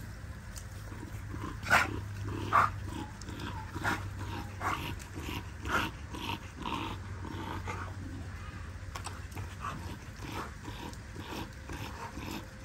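Dogs at rough play, making short scattered growls and yips, the loudest a couple of seconds in.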